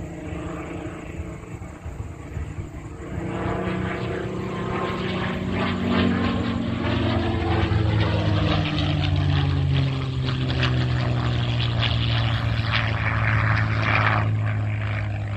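P-51 Mustang's V12 piston engine and propeller droning as the fighter flies by, growing louder about three seconds in, then the pitch dropping as it passes.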